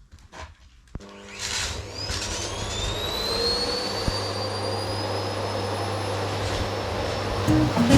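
Household vacuum cleaner switched on about a second in: its motor spins up with a rising whine that levels off into a steady running whine over a low hum. Guitar music comes in near the end.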